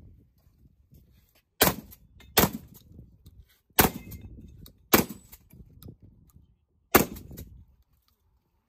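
Five gunshots fired at an uneven pace, each with a short trailing echo.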